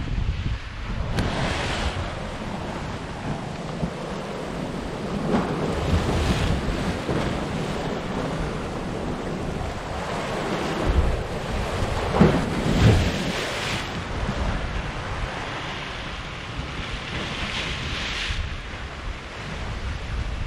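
Sea surf washing and breaking against a rocky shoreline, swelling in several surges, the loudest a little past the middle, with wind buffeting the microphone.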